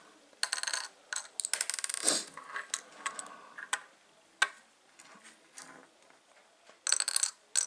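Small round plastic building-block pieces clicking and rattling as they are dropped into little plastic toy trash bins, and the bins clacking down on a hard tabletop. The clicks come in several quick clusters, with single clicks between them.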